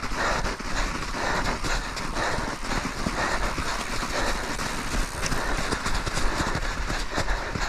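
Commencal Meta V5 mountain bike rolling slowly over rough snow: a continuous crunching hiss of the tyres in the snow, broken by many irregular clicks and rattles from the bike.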